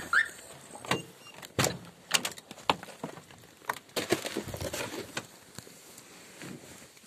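A Volkswagen T4 van's driver's door being opened: two short squeaks as it opens, then a series of knocks and clunks. A rustle follows as someone climbs onto the seat. The engine is not running.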